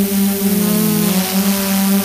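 DJI F550 hexacopter's six electric motors and propellers whirring steadily in flight, heard close up from the camera on board. Their pitch wavers about halfway through as the motors change speed, then settles.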